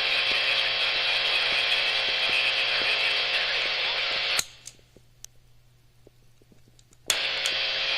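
Steady buzzing hiss from an electric guitar signal chain with a JOYO Tai Chi overdrive pedal engaged. It cuts off with a click about four seconds in and returns with a click near the end.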